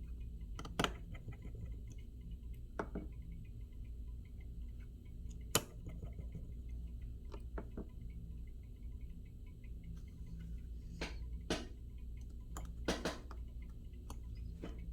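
Scattered light clicks and taps from small tools and parts being handled during an iPhone 7 Plus repair, irregular and a few seconds apart, over a steady low hum.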